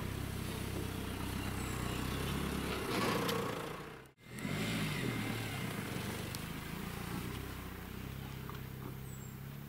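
A car driving: a steady engine hum with road noise. It breaks off for a moment about four seconds in, then carries on.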